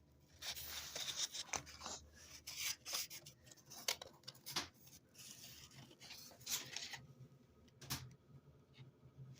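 Handling noise of a sanding belt: irregular rustling, scraping and light clicks, busy for about seven seconds and then sparser. No sander is running.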